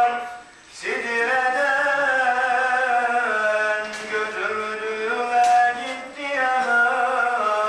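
A single man's voice chanting unaccompanied in long, ornamented held notes: the melodic recitation of a mevlid. It breaks for a breath about half a second in and resumes a moment later.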